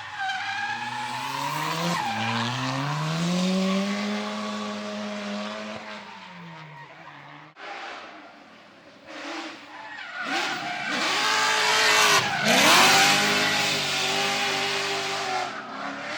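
Drift car engine revving hard with tyre screech as the car slides. The engine's pitch climbs, holds high and then drops off. About halfway through it cuts abruptly to another drift run, where the engine rises and falls and the tyre squeal is loudest near the end.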